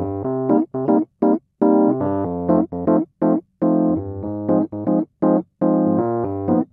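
Background music: a keyboard tune played in short, clipped chords with brief gaps between them.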